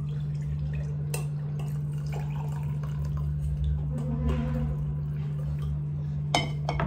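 Warm water poured from a metal pot into a ceramic mug, trickling and dripping, over a steady low hum; a sharp knock near the end.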